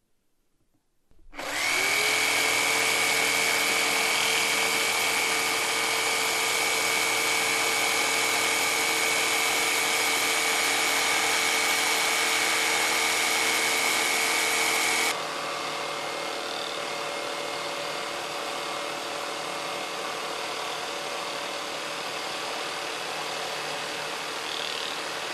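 Cordless Bosch jigsaw starting up with a short rising whine, then running steadily as its blade cuts through a wooden board. About fifteen seconds in, the sound drops abruptly to a quieter, duller running.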